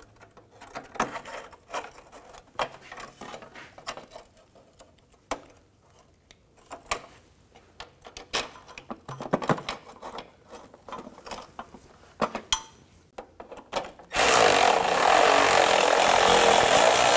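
Scattered light metal clicks and rattles of a sheet-metal heat shield being positioned and its bolts started by hand. Near the end a cordless electric ratchet runs loudly and steadily for a few seconds, driving a shield bolt in.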